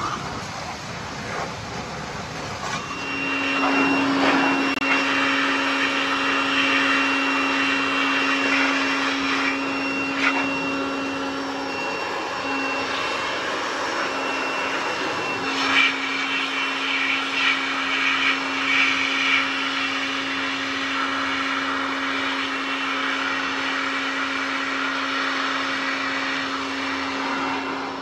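Handheld electric air blower running, a steady motor whine with a rush of air, blowing water off a freshly washed window AC unit. It starts a few seconds in, drops out for a few seconds about halfway through, then runs on steadily.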